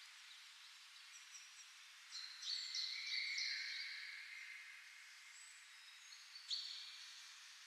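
Faint outdoor ambience with birds chirping: a cluster of short calls about two seconds in, and another sharp call near the end.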